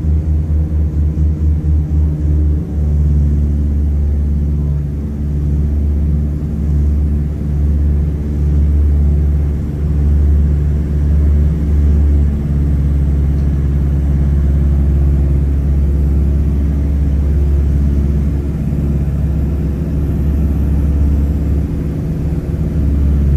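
Douglas DC-3's twin radial engines at takeoff power, heard inside the cabin over the wing: a loud, deep drone. It throbs with a fast beat for the first couple of seconds, then runs steadier through the climb.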